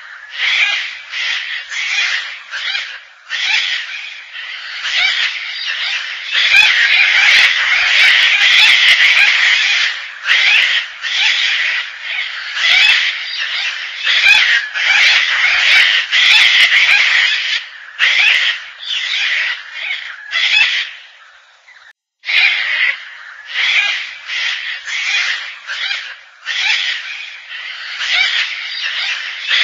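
Gang-gang cockatoo calling: a long run of grating, creaky calls, some in quick series and some packed into dense bouts, with one brief pause about two-thirds of the way through.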